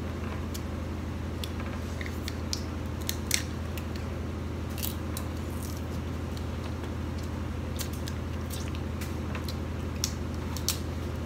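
Snow crab shells being cracked and picked apart by hand: scattered sharp cracks and snaps, loudest about three seconds in and twice near the end, over a steady low hum.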